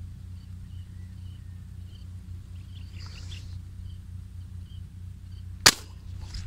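A single sharp shot fired at a fish about two-thirds of the way in, over a steady low background hum.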